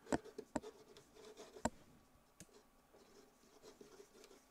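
Marker pen scratching across paper as a word is handwritten, with a few sharp clicks in the first second or two, the loudest about a second and a half in.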